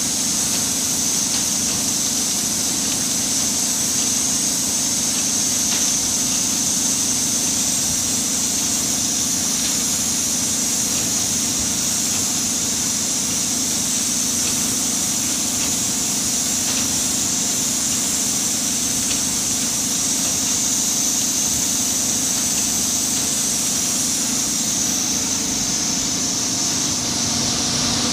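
Steady, unbroken din of palm oil mill threshing-station machinery running, the conveyors and threshing drum carrying and tumbling palm fruit bunches, with a high hiss through it.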